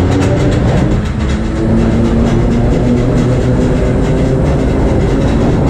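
Vintage BMT Standard subway car running on the line, heard from inside the car: steady noise of wheels on the rails with a low hum from the motors, and a few sharp clicks near the start.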